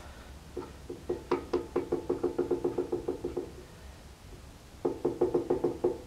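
Rapid metallic clicking with a short ring to each click, about six a second, from an Allen key working the set screw of a large multi-groove V-belt pulley on a PTO shaft. It comes in two runs, the second starting about five seconds in.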